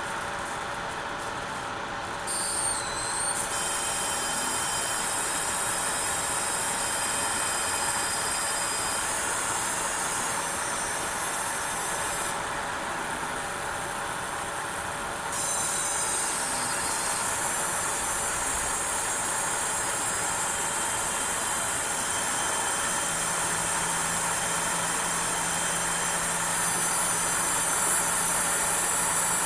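Graphics card coil whine: the card's power inductors giving off a high-pitched whine made of several steady tones over a steady hiss. The tones switch abruptly a few times, about 3, 12 and 15 seconds in, as the load on the card changes, and a low hum joins near the end.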